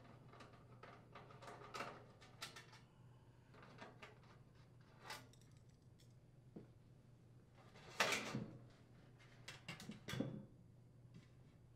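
A hand screwdriver backing out small screws from a sheet-metal range drawer, with scattered light clicks and scrapes. Then the loose metal drawer front panel clatters and scrapes as it comes off and is set down, loudest about eight seconds in.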